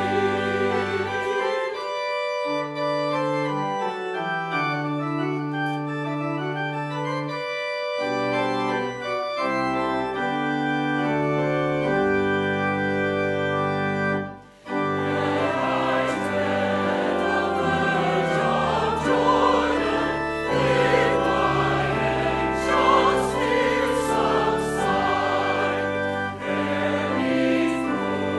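Church choir singing with organ accompaniment, long held chords in the first half and a fuller sung passage after a brief break about halfway through.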